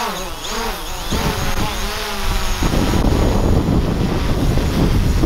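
Small quadcopter drone hovering overhead, its propeller whine rising and falling in pitch as it manoeuvres. About two and a half seconds in, the whine stops and wind buffeting the microphone takes over.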